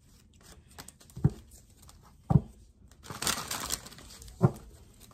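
Tarot cards being handled: three dull thumps, with a short papery rustle of shuffling between the second and third.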